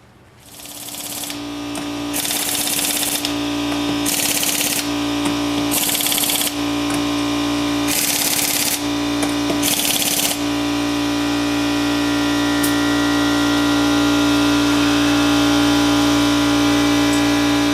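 A power tool hammers in five short bursts of about a second each, typical of an impact wrench running down U-bolt nuts, over a loud steady motor hum that starts about half a second in and keeps going.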